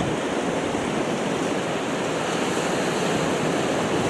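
Steady rush of sea surf washing over a rocky shoreline.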